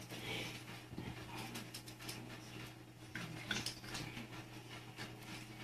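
Faint sounds of two cats at bowls of dry cat food: scattered small clicks and brief hissy noises over a steady low hum.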